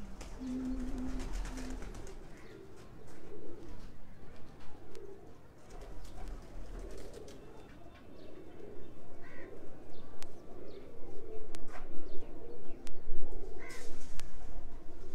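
Domestic pigeons cooing, repeated low coos through the whole stretch, with a few short soft knocks.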